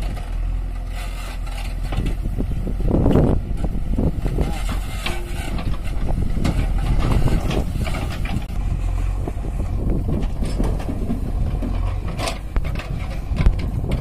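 JCB backhoe loader's diesel engine running under load as its backhoe bucket digs soil. The engine note swells unevenly with the digging, with a few sharp knocks near the end.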